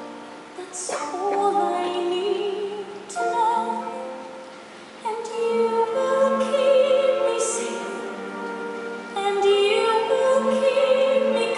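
A woman singing a slow musical-theatre ballad in phrases, her held notes wavering with vibrato, over quiet accompaniment.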